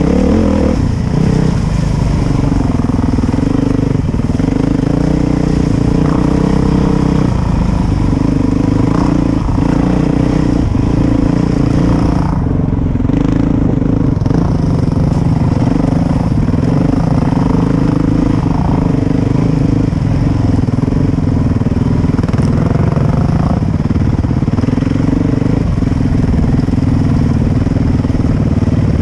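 Dirt bike engine running under load on a trail, its revs rising and falling over and over with the throttle and gear changes.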